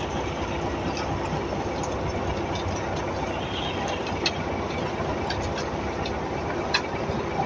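Heavy machinery running with a steady mechanical noise, with a few sharp metallic clicks now and then.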